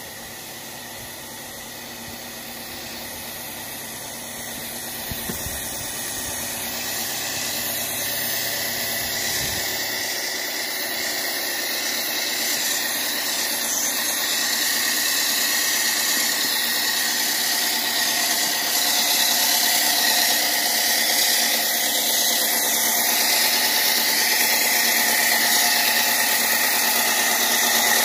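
A water-fed power saw running steadily as it cuts rock, with a steady high whine, growing gradually louder throughout.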